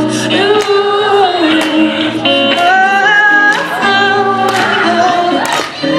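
Live pop duet: female and male voices holding long notes in harmony over instrumental accompaniment with a regular strummed beat.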